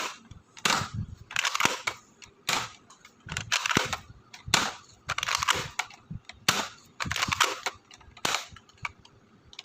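Nerf Elite Disrupter foam-dart blaster being primed and fired over and over: about a dozen sharp plastic clacks and pops, roughly one a second.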